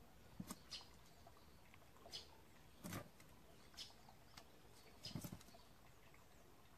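Near silence broken by faint, scattered taps and scratches of kittens' paws and claws on a mirror's glass and frame, with a small cluster about three seconds in and another about five seconds in.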